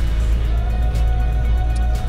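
Background music with a steady beat, about one stroke a second, over held tones and a strong bass.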